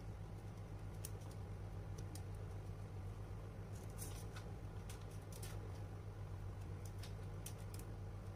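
Faint steady low hum with scattered light clicks and ticks, a few of them clustered in the middle.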